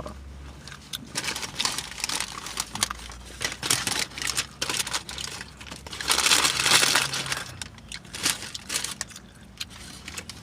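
Sandwich wrapper crinkling and rustling as a sub is handled and its fallen fillings are put back, with many quick crackles and a longer, louder spell of rustling about six seconds in.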